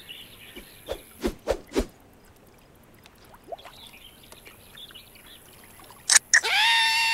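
Cartoon sound effects: four quick watery plops in the first two seconds, then faint splashing. Near the end come two sharp snaps, then a high, held wailing cry starts.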